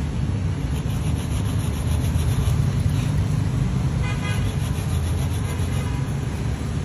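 Steady low rumble of road traffic, with a short car or motorbike horn toot about four seconds in.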